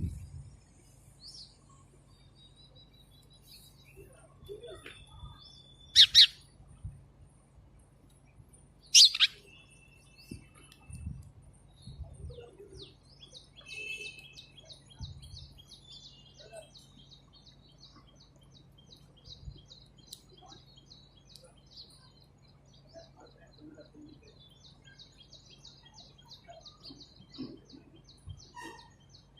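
Small birds chirping: two loud, sharp chirps about six and nine seconds in, and a fast, high twittering that runs on through the second half.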